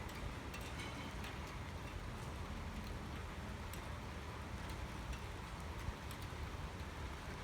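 Thunderstorm rain falling steadily, with scattered drops ticking sharply close by over a continuous low rumble.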